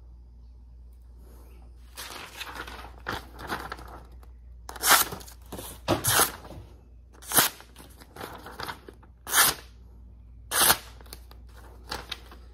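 Forged railroad spike knife cutting a sheet of lined notebook paper: a series of short paper rips and rustles, about five of them sharp and loud. The paper tears and snags rather than slicing cleanly, which the knife's maker puts down to his own poor cutting technique, not the blade's sharpness.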